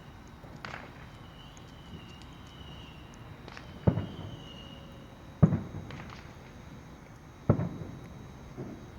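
Fireworks going off: three loud bangs about four, five and a half and seven and a half seconds in, each trailing off in a short rumble, with a few fainter pops between them.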